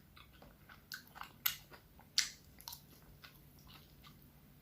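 A person chewing a mouthful of miso salmon: faint, irregular wet clicks and smacks of the mouth, the loudest about one and a half and two seconds in.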